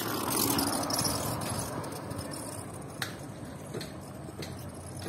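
Outdoor ambience: a steady noise, loudest in the first second or so, with a few light clicks near the middle.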